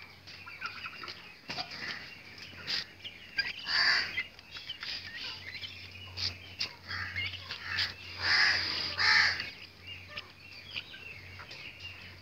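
Birds calling and chirping, with three loud calls about four seconds in and twice around eight to nine seconds, and smaller chirps between.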